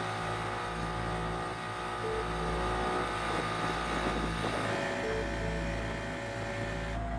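Small outboard motor running steadily, pushing a wooden pirogue across the river.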